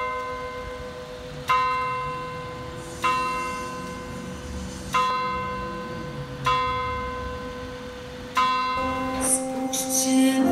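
A church bell struck again and again at the same pitch, about every one and a half to two seconds. Each stroke rings out and fades before the next. Near the end, held notes of music begin.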